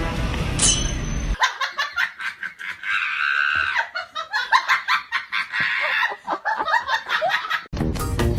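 Background music that breaks off about a second and a half in. Then several seconds of rapid, choppy, high-pitched laughter, before the music comes back near the end.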